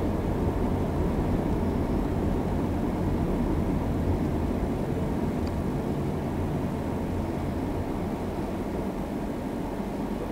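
Steady low rumble of a car's engine and tyres, heard from inside the moving car, growing a little quieter as the car slows to a stop.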